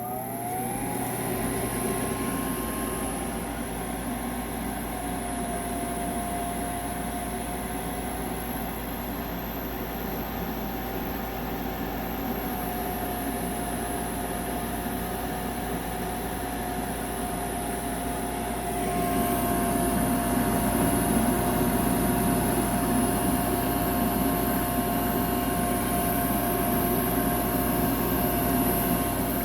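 A motor spinning up, its pitch rising over the first second, then running with a steady hum. It gets louder about nineteen seconds in.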